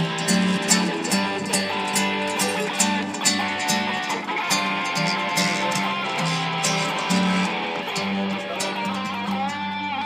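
Electric guitar played through an amplifier, with a bass line of held low notes and a steady beat of sharp ticks underneath; a rising slide or bend near the end.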